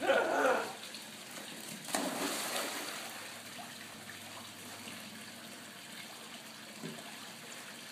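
Swimming-pool water splashing and sloshing as a small dog that has just jumped in paddles across the pool. There is a loud splash right at the start and another burst of splashing about two seconds in, then a quieter wash of moving water.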